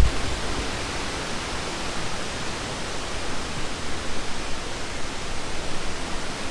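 Steady rushing of a waterfall, an even hiss-like roar of falling water.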